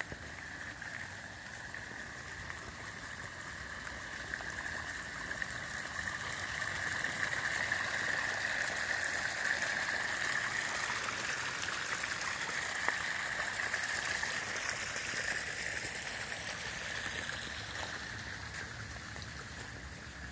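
Small pondless waterfall, water splashing and trickling over stacked stones and pebbles. It grows louder through the first half, is loudest in the middle, then fades away near the end.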